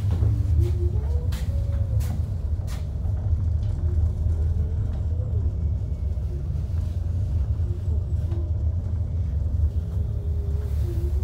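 Steady low rumble of a moving aerial cable car cabin, with a few sharp clicks in the first three seconds and a faint wavering whine above the rumble.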